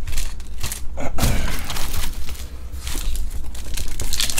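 Foil trading-card packs being handled: wrappers rustling, with thuds from hands on the table.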